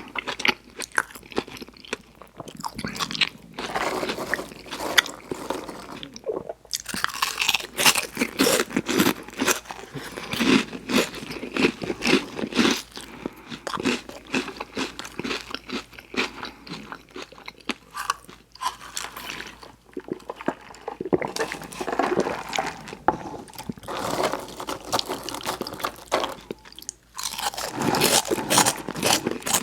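Close-miked eating: rapid, continuous crunching and chewing of burger and fries, with brief pauses about six seconds in and near the end.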